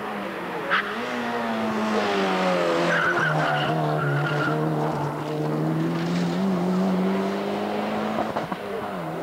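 Rally car engine working hard through a corner, one steady engine note that sags and rises as the car turns, with a brief tyre squeal about three seconds in. The engine note eases off near the end as the car pulls away.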